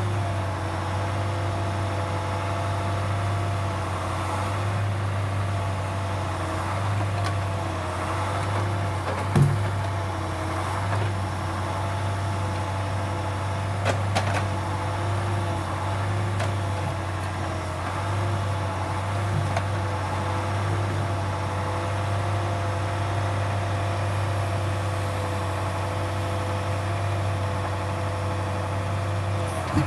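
Truck engine running steadily while an OMTL 70-02 hydraulic timber crane works, with a pump whine that wavers in pitch as the controls are worked. A few short, sharp clunks stand out over the hum.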